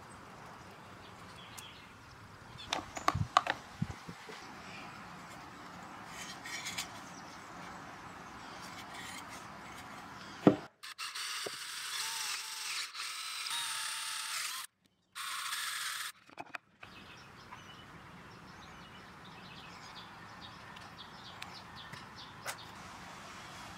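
Cordless drill boring into a wooden rocker piece, running in two spells, the second shorter, with a brief stop between, just after a sharp knock. Earlier, a few quick knocks and taps of wood being handled on the bench.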